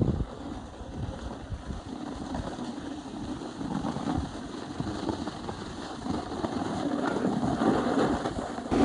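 Wind buffeting the microphone together with the scraping hiss of riding down packed snow, the rushing noise growing louder over the last couple of seconds.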